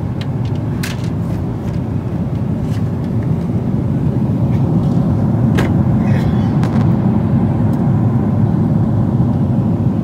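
Steady low rumble of a moving vehicle, building gradually louder, with a few scattered clicks and knocks.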